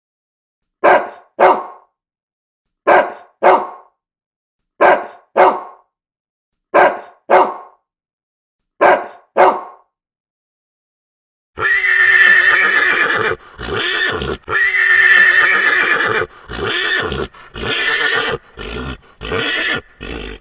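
Zebra calls: short calls in pairs, repeated evenly about every two seconds, then from a little past halfway a longer run of loud, whinny-like braying broken by short pauses.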